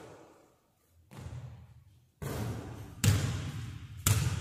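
Basketball bouncing on a hardwood gym floor: a few separate echoing thuds about a second apart, the two near the end the loudest.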